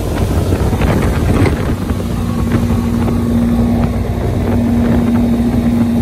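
Motorboat engine running with the boat underway, with wind on the microphone. A steady hum joins in about two seconds in.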